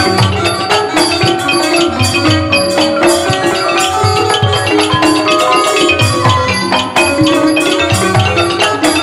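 Thai piphat mai khaeng (hard-mallet) ensemble playing an instrumental passage, with the xylophones' fast, even mallet strokes to the fore over drums and other percussion.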